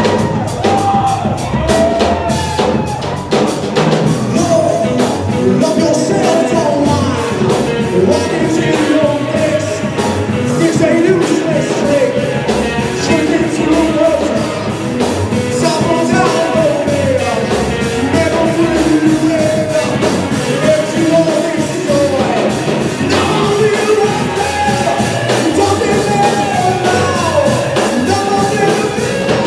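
Rock band playing live, with a singer over drums and amplified instruments, loud and continuous.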